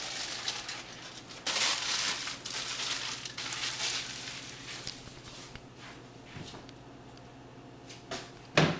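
Aluminium foil being crumpled and scrunched by hand, crackling for the first few seconds and then fading. Near the end comes one sharp clack as the plastic trash can's lid shuts.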